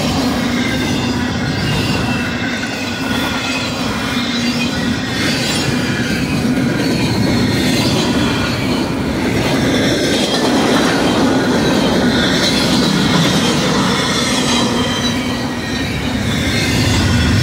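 Freight cars of two passing trains rolling by: double-stack intermodal well cars on the near track and autorack cars on the far track. There is a steady, loud rumble of steel wheels on rail, with thin, wavering high squeals from the wheels.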